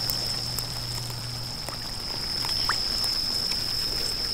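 Night insects trilling in one steady high-pitched tone, with a few short faint chirps about halfway through.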